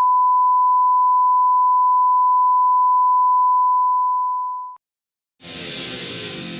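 A steady, loud pure beep, the 1 kHz line-up test tone at the head of a broadcast tape, holding one pitch for almost five seconds before fading out. After a brief silence, music begins about five seconds in.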